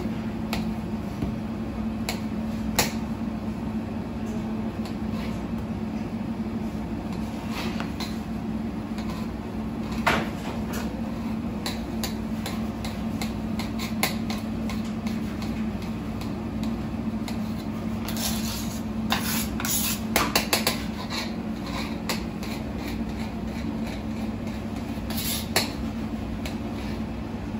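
Kitchen knife slicing and dicing sausage on a marble counter: irregular sharp taps of the blade striking the stone, with a quick run of chops about two-thirds of the way in. A steady low hum runs underneath.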